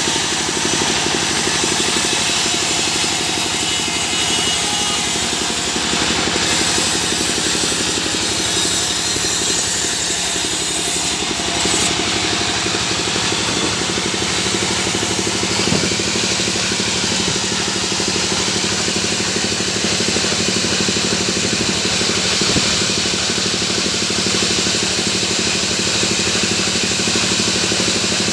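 Sawmill machinery running steadily, an engine hum with an even pitch that doesn't rise or fall.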